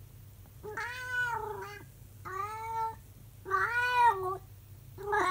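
An elderly calico cat howling: four drawn-out yowls, each rising and then falling in pitch, with short pauses between them, the first starting just under a second in.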